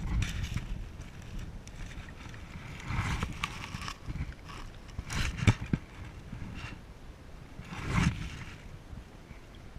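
Sounds of a kayak on the water: several swells of swishing, splashing water a few seconds apart, with a few sharp knocks and scrapes against the hull about halfway through.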